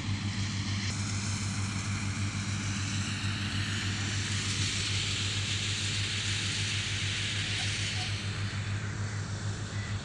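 Diesel tractor engine driving a wheat thresher, a steady low drone with a hissing rush of the threshing machine over it.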